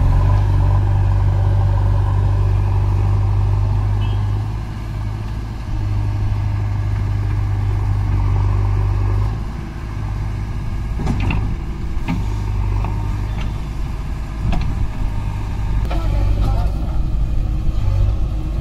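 Heavy diesel engine of a backhoe loader or tractor running with a steady low drone. The drone dips and picks up again a couple of times. In the second half there are several short sharp knocks.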